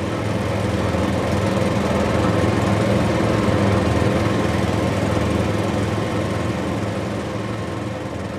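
Heavy diesel engine of a tracked excavator running steadily under load as the machine drives up onto a lowbed trailer, swelling a little around the middle.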